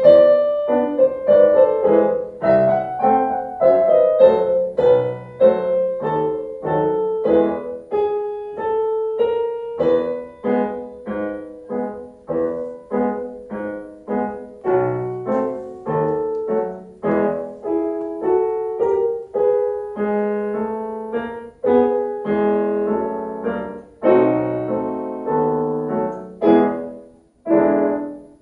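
Solo piano piece played on a digital piano: a melody over chords in a steady run of struck, fading notes, with a brief break near the end before the next phrase begins.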